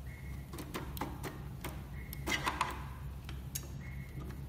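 Light clicks and ticks of a screwdriver and plastic and metal parts being handled inside an opened projector as its power-supply board is worked loose, with a short cluster of louder clicks about halfway through. Brief faint high tones come three times over a steady low hum.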